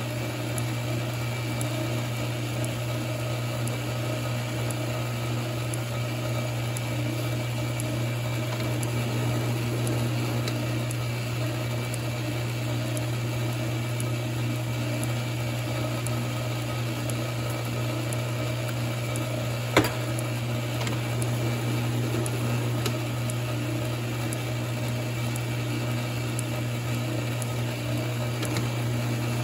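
Metal lathe running steadily with a low motor hum during single-point threading of a 1-inch, 8-threads-per-inch thread. A single sharp click about twenty seconds in.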